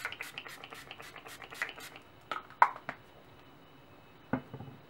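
L'Oréal Infallible Pro-Spray & Set setting spray pumped rapidly onto the face, a quick even run of short mist sprays, about five a second, that stops about a second and a half in. Then a few sharp clicks and a dull knock.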